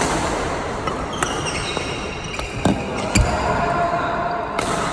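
Badminton play in a reverberant sports hall: a handful of sharp racket hits on shuttlecocks, shoe squeaks on the court floor, and a dull thump about three seconds in.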